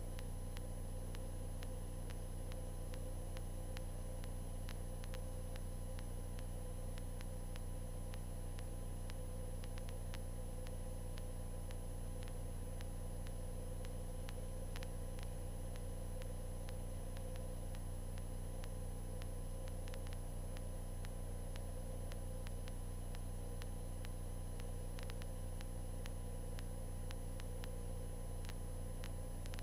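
1978 Cessna 152's four-cylinder Lycoming engine running at steady power: a constant drone with a hiss over it.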